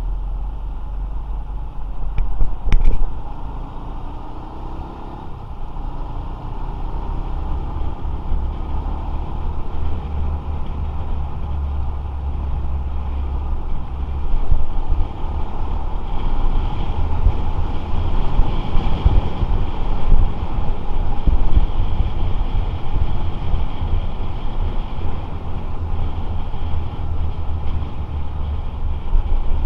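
Motorcycle riding in road traffic: engine and road noise under a steady low wind rumble on the action camera's microphone, with a sharp knock about three seconds in.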